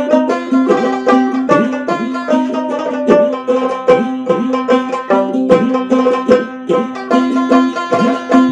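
Background instrumental music: a quick plucked-string tune over a steady low held note.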